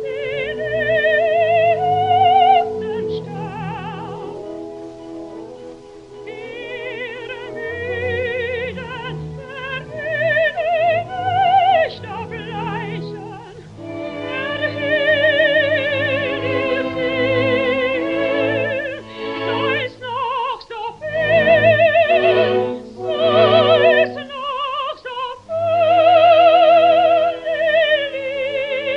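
Operatic singing: a classical voice holding high notes with a wide vibrato in phrases broken by short pauses, over instrumental accompaniment.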